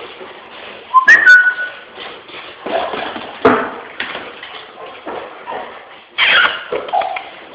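A dog running back and forth on a hard tiled hallway floor, making several short noisy bursts of scuffling and clatter. About a second in comes a short, high two-note whistling tone.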